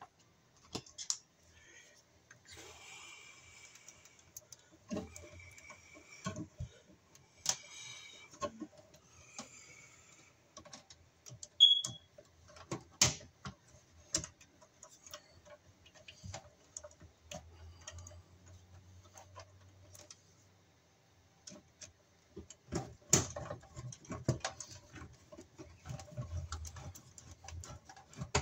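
Irregular small clicks, taps and rustles of hands working stiff copper wires and a metal ground screw at an electric baseboard heater's wiring end, with a screwdriver working near the end. One sharp click about twelve seconds in is the loudest.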